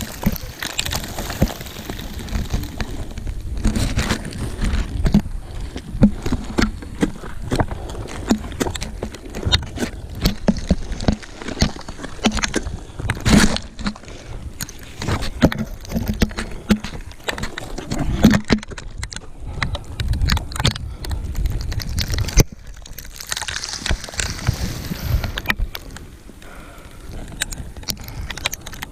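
Ice axe picks and crampon points striking frozen waterfall ice: many irregular sharp knocks over a steady low rumble.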